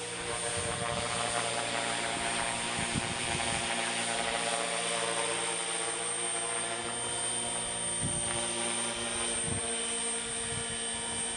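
HK450 electric RC helicopter in flight: the steady whine of its motor and spinning rotors, holding a nearly constant pitch.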